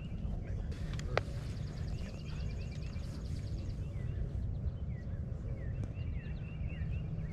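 Outdoor background sound: a steady low rumble with many short, repeated chirps over it, and a single sharp click about a second in.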